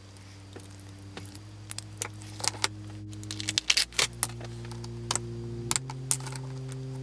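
Light clicks and a brief rattle from the radio's small circuit boards being handled and laid down on a cutting mat, busiest around the middle. Under them, soft background music of held notes steps up in pitch every couple of seconds and slowly grows louder.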